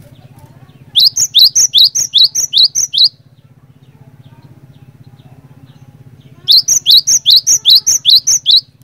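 Cinereous tit (glatik batu) singing: two phrases of about seven quick, repeated high notes each, about three notes a second, with a pause of a few seconds between them. A steady low hum runs underneath.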